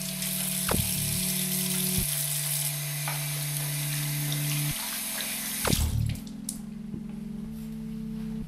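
Single-lever mixer tap running into a bathroom basin, water splashing over hands being washed under it; the water stops about six seconds in.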